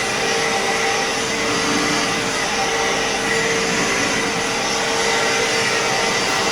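Fantom Fury 10-amp upright vacuum cleaner running steadily on carpet: a continuous rush of airflow with a steady motor whine.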